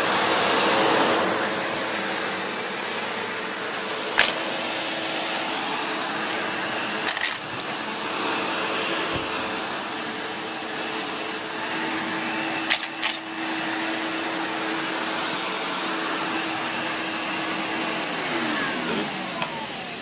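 Sebo Automatic X5 upright vacuum cleaner running steadily over carpet, with a few sharp clicks as debris such as coins and cereal is picked up. Near the end its motor tone stops and falls away.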